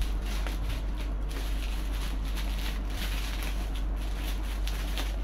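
Bubble-wrap plastic sleeve rustling and crackling in the hands as a model plane's rudder is slid out of it: many small irregular crackles over a steady low hum.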